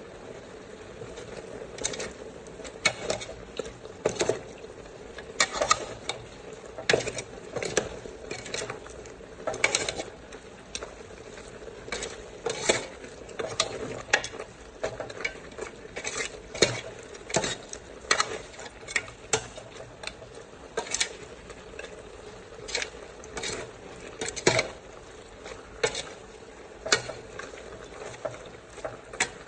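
Metal ladle stirring and tossing food in a metal cooking pot, clinking and scraping against the pot in irregular strokes, about one or two a second, over a steady sizzle of the food cooking.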